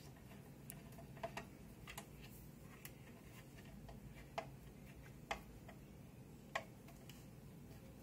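Faint, irregular small clicks of a screwdriver tip working a screw in the back of a Dell OptiPlex 3020 Micro's case, as the screw is being driven back in.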